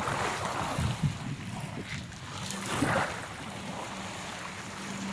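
Small sea waves washing over a pebble shore as someone wades in. It comes as two swells of splashing hiss, about a second in and around three seconds, with wind rumbling on the microphone underneath.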